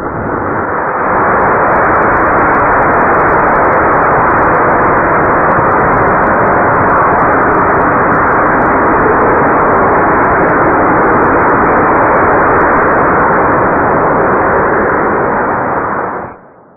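Homemade 500 g rocket-candy (potassium nitrate and sugar) solid rocket motor firing on a static test stand. A loud, steady rushing noise with faint scattered crackles builds over the first second, holds for about fifteen seconds, then cuts off suddenly at burnout.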